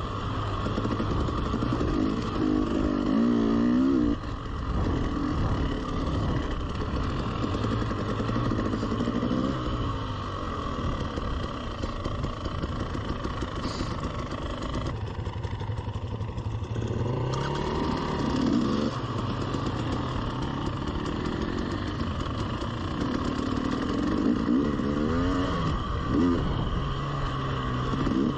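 300cc two-stroke enduro dirt bike engine under way, revving up and falling back again and again as it is ridden over a dirt trail. About halfway through it eases off to a lower, quieter running for a couple of seconds while the bike slows, then picks up again.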